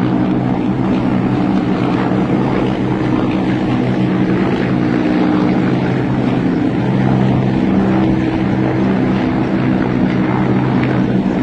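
Steady drone of a formation of military helicopters flying overhead: rotor and turbine engine noise with a low hum of several steady tones.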